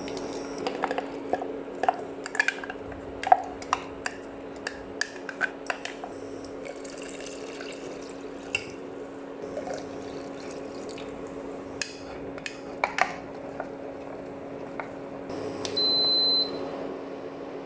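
Kitchen work with soup: utensils clink sharply against cookware many times amid liquid sounds, over a steady low hum. A short high tone sounds near the end.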